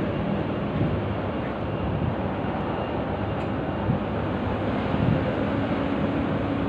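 Steady low rumble of vehicle engines and street traffic, with a car driving past near the end.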